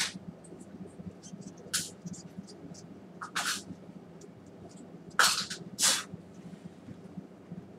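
Five short hissing puffs of air, the two near the end loudest, with light clicks of handling between them, as dust is blown off a projector lens assembly being cleaned.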